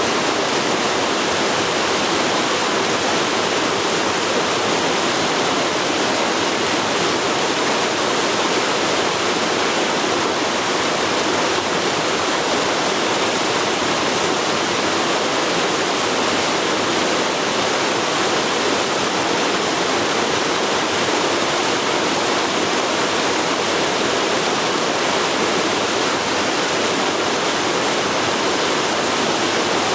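Forest river flowing: a steady, even rush of water that does not change.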